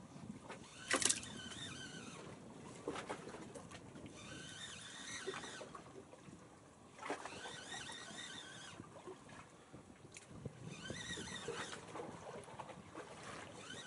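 Seawater lapping and splashing against the hull of a small fishing boat, with a sharp knock or splash about a second in and another about seven seconds in.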